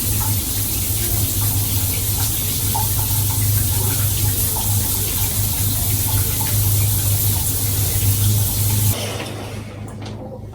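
Shower running, a steady spray of water that stops about nine seconds in.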